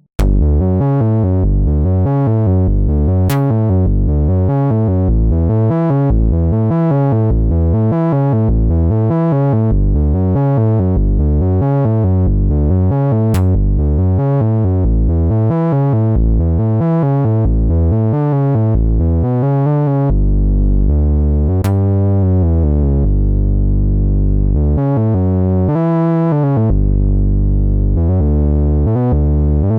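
Roland JD-800 software synthesizer playing a factory patch: a rhythmic run of notes with sharp starts, about two a second, over a bass line, turning into longer held bass notes about twenty seconds in.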